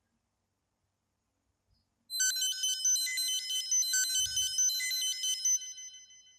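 Samsung Galaxy Note 3 ringtone: a short, high, bright melody of quick notes that starts about two seconds in, plays for about three and a half seconds and then fades out.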